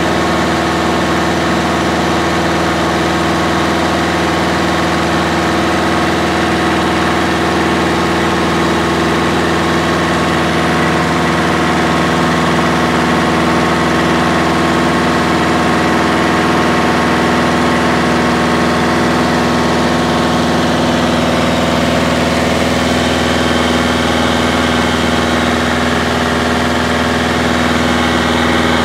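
Single-engine light airplane's engine and propeller droning steadily in cruise, heard from inside the cabin.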